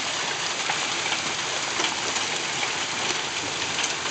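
Heavy rain mixed with hail pouring down steadily, dotted with scattered sharp ticks of hailstones striking.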